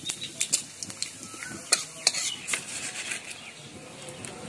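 Steel spatula scraping and clinking against an aluminium kadai while stirring whole spices (bay leaf, dried chilli, cumin) in hot oil, with a light sizzle underneath. The clinks come irregularly, most of them in the first half.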